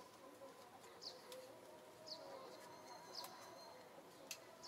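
Faint outdoor background with short, high chirps about once a second, typical of a small bird calling, and a few sharp clicks.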